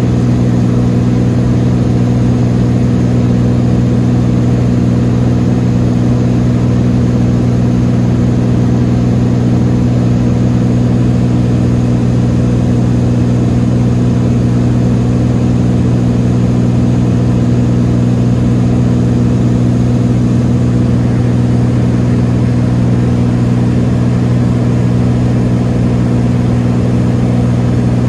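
Beechcraft Bonanza V35B's six-cylinder Continental engine and propeller heard from inside the cabin in steady cruise: a loud, unchanging drone.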